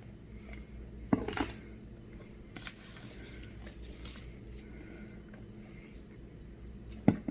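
Faint soft chewing of a piece of cornstarch that is not very crunchy, with a few short clicks and a sharper click near the end.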